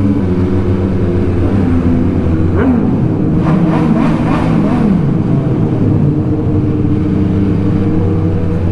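MV Agusta Superveloce's inline three-cylinder engine running under way through its three exhaust outlets, with its note dipping and rising a few times about three to five seconds in as the throttle changes.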